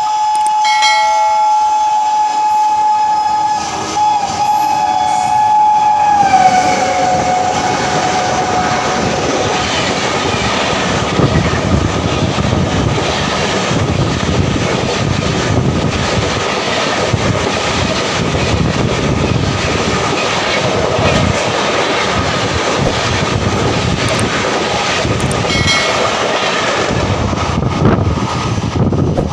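Dibrugarh Rajdhani Express passing at full speed. Its locomotive horn sounds a steady note that drops in pitch about six seconds in as the engine goes by, then the coaches' wheels keep up a loud rushing clatter on the rails for the rest of the pass.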